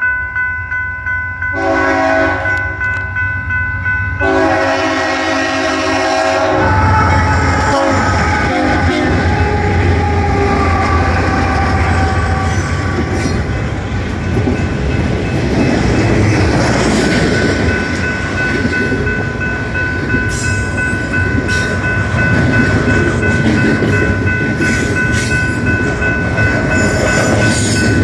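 Diesel freight locomotive's multi-chime air horn sounds three blasts for a grade crossing. Then the locomotives pass and double-stack container cars roll by, wheels rumbling and clattering on the rails, while the crossing bell keeps ringing.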